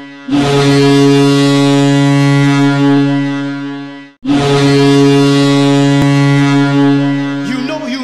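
Ice hockey goal horn of the Fargo Force, the one used in the 2020 USHL season, sounding two long steady blasts of about four seconds each with a brief break between them. Music comes in as the second blast fades near the end.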